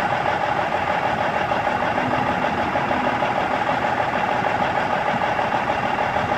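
Heavy diesel semi truck engine idling steadily.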